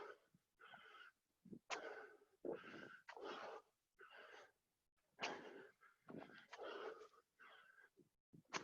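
A person breathing hard while doing burpees: heavy, hoarse puffs in and out, about one a second, with short gaps between. This is out-of-breath panting from the exertion of a burpee set.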